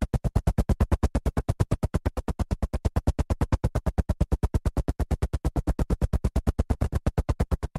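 Helicopter rotor chopping: a fast, steady train of heavy blade beats, about nine or ten a second, that cuts off suddenly at the end.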